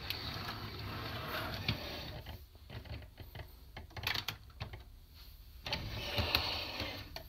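Hard plastic parts of a DX Kyuranger robot toy being handled: rubbing and rattling with a few sharp clicks as pieces are moved and fitted together, broken by two short pauses.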